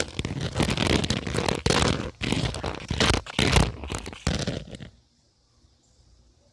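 Heavy handling noise on the recording device's microphone: a dense run of crunching, scraping rubs that cuts off about five seconds in.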